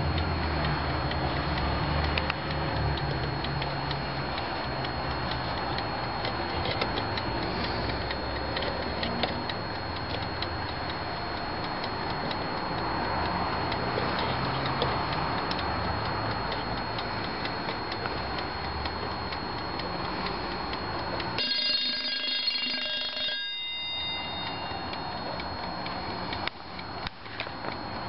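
Jaz Brevete wind-up alarm clock ringing its alarm, the hammer beating rapidly and without pause on the bell. The ringing breaks off about three quarters of the way through, and the clock's ticking is heard near the end.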